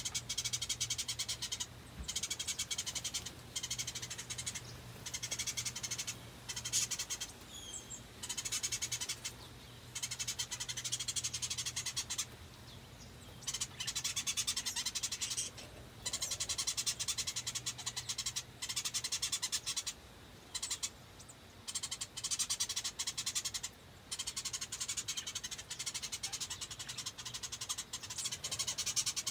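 A high-pitched, rapidly pulsing trill comes in repeated bursts of a second or two, with short breaks between them. A low steady hum runs underneath.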